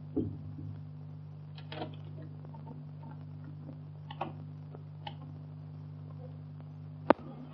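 A wooden door is pulled shut with a low thump, followed by a few faint clicks, and near the end one sharp, loud click. All of it sits over the steady low hum of an early sound-film soundtrack.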